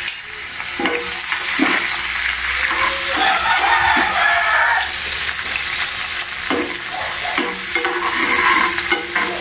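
Chopped onion sizzling in hot oil in a small frying pan as the sofrito is started, stirred with a metal slotted spoon that scrapes and taps against the pan again and again.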